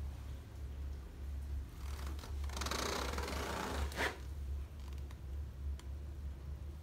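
Rustling and scraping from the camera being handled close to the microphone for about two seconds, ending in a sharp click, over a low steady hum.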